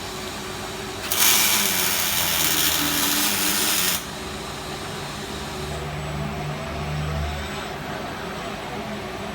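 Fronius CMT welding arc on steel tube: a loud, even hissing crackle that starts sharply about a second in and cuts off about three seconds later. A lower machine hum follows over a steady background drone.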